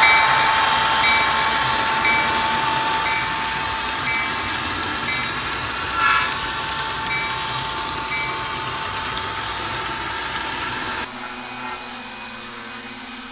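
Train sounds with a bell dinging about once a second over a steady rumbling wash, slowly fading. Near the end this cuts to a quieter, low hum.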